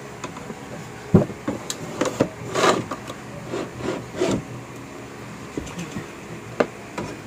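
Irregular clicks and knocks, with some rubbing, from a sliding mirror door being handled and fitted against a vanity cabinet and its metal slide rails. The knocks bunch in the first half and one sharper click comes near the end.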